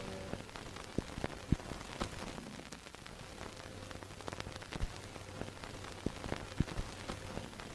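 Steady hiss with scattered irregular pops and clicks: an old-recording crackle effect, with the closing music ending just as it begins.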